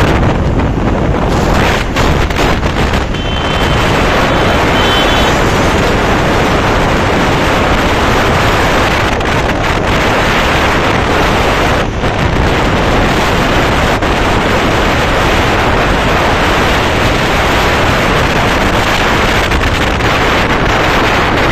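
Heavy wind rushing over the microphone on a moving motorcycle, with the motorcycle's running and road noise underneath. A short high beep sounds about three seconds in.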